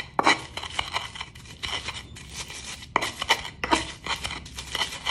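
Garlic cloves and salt being crushed with a stone ulekan pestle in a cobek mortar: a run of irregular crushing and scraping strokes, about two or three a second.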